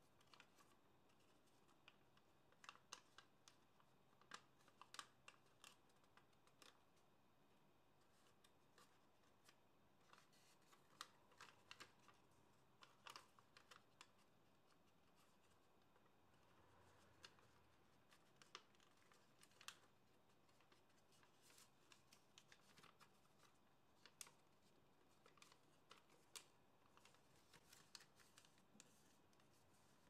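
Faint crinkling and crackling of a sheet of origami paper being handled and folded by hand, with small irregular clusters of crackles and a few quieter pauses between them.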